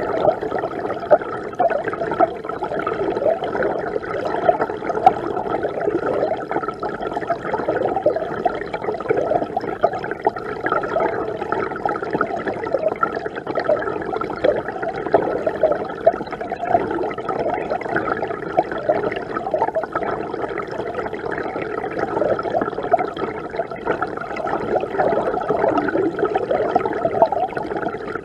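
Mountain river water flowing and bubbling steadily, a dense mass of small gurgles and splashes without let-up.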